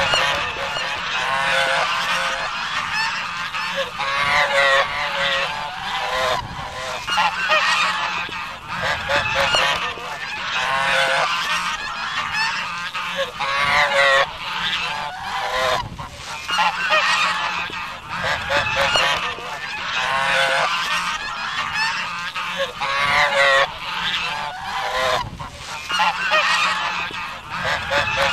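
A flock of domestic geese honking loudly and continuously at close range, many calls overlapping with no pause.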